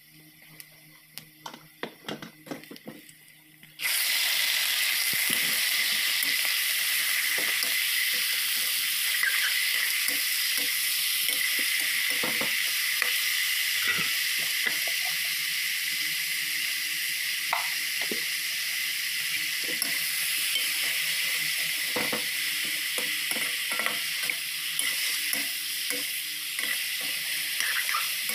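Pork chunks and onions frying in hot oil in a steel wok: a loud sizzle that starts suddenly about four seconds in, after a few quieter clicks, and then keeps on steadily. Over it a steel spoon scrapes and clinks against the wok as the meat is stirred.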